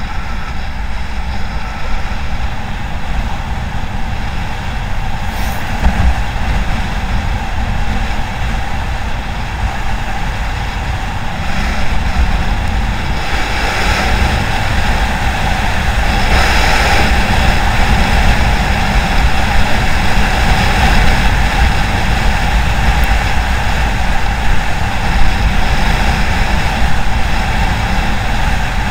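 Wind rushing over the microphone of an action camera on a moving vehicle, with a steady engine tone and road noise. It gets a little louder about halfway through.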